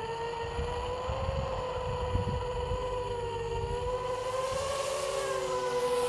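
Blackout clone FPV quadcopter's motors and propellers whining in flight: a steady tone that drifts up and down in pitch with the throttle and rises a little about five seconds in.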